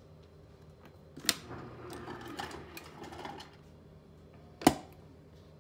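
Maytag refrigerator running with a steady hum from its compressor and fans after a repair to its dispenser control board. Two sharp clicks stand out over the hum, one about a second in and a louder one near the end.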